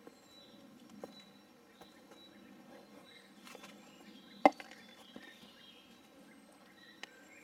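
Quiet outdoor ambience with faint, short bird chirps and a few soft clicks, broken by a single sharp knock about halfway through.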